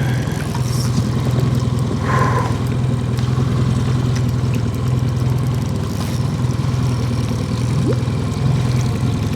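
Boat's outboard motor idling steadily with a low, even hum.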